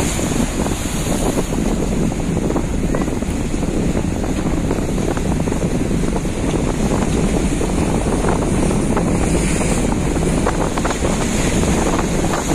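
Strong wind buffeting the microphone over the steady run of a small fishing boat's motor, with waves splashing in rough seas.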